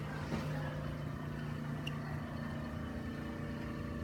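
Steady low mechanical hum, with a light click about two seconds in.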